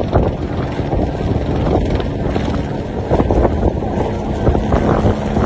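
Erupting volcanic cone spurting lava: a loud, rough rumbling roar broken by frequent irregular bursts.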